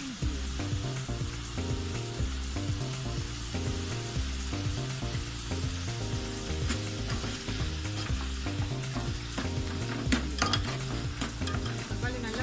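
Metal spoon stirring a steel pot of simmering liquid with tomatoes, green chillies and herbs, over a steady sizzling hiss. A cluster of spoon clinks and scrapes against the pot comes about ten seconds in. Background music with a low bass line plays underneath.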